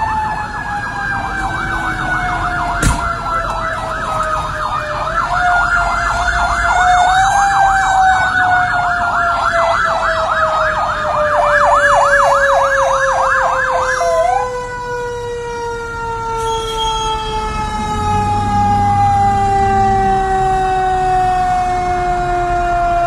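Fire engine siren: a rapid warbling yelp that cuts off about fourteen seconds in, over a long siren tone that slowly falls in pitch throughout. A sharp click about three seconds in, and a low rumble near the end.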